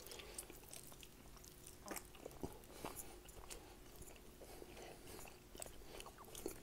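A man chewing a mouthful of raw ribeye steak close to an earbud microphone: faint, scattered wet clicks and smacks of the mouth and jaw.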